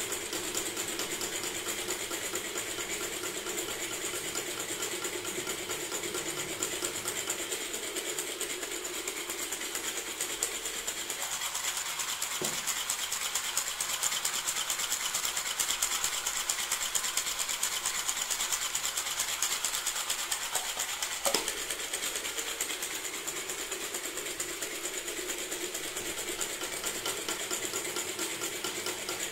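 3D-printed PLA and ABS model of a four-cylinder engine running its mechanism: a fast, steady plastic clatter with a steady whine. There are two sharper knocks, about twelve seconds in and again about twenty-one seconds in.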